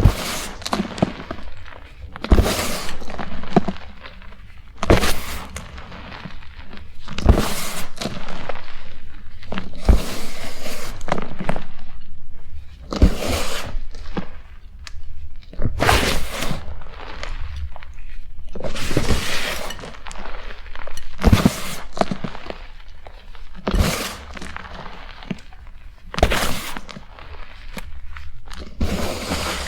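Blocks of BSN gym chalk crunching and breaking. A sharp crack comes about every two and a half seconds, each followed by a second or two of crumbly crunching.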